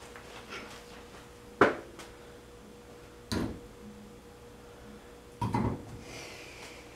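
Parts from a powder coating kit being handled and set down on a hard surface: three sharp knocks about two seconds apart, the first the loudest, with some rustling between.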